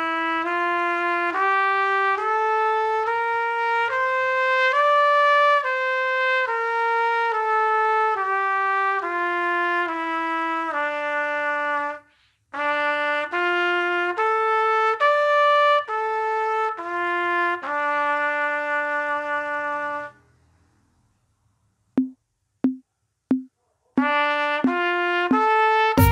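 Solo trumpet playing an E minor scale, one held note after another, stepwise up and back down. After a short break for breath it plays the arpeggio in wider leaps. After a pause come four short, clipped repeated notes and a few more notes.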